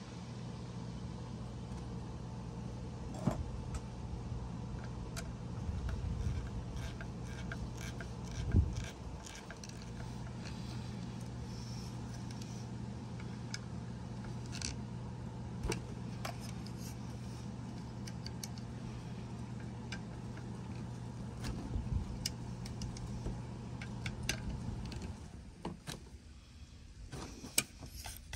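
Scattered small metallic clicks and taps of a screwdriver, screw and washers being worked into a trailer door's inside latch plate, over a steady low engine-like hum that stops about three seconds before the end.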